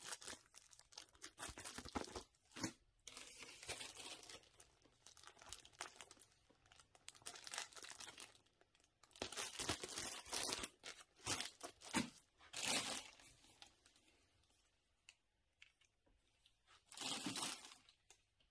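Clear plastic bags and wrapping crinkling and rustling as they are handled, in irregular bursts, with a quiet spell about three-quarters of the way through.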